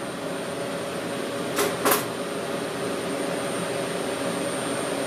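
Brother Speedio S700X1 CNC mill running, a steady machine hum with a faint high tone. Two short hiss-like bursts come about one and a half and two seconds in.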